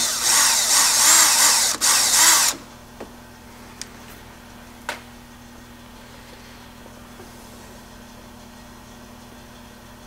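Cordless drill running as it bores a hole through the CVT exhaust outtake hose for the temperature probe, for about two and a half seconds with a brief break. Then a few light clicks and quiet.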